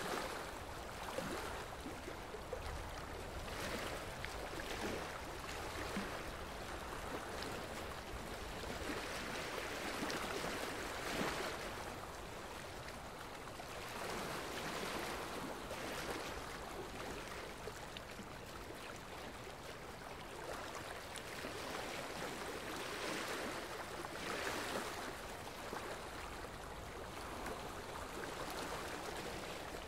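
Rushing water ambience: a steady wash of noise that swells and eases every few seconds.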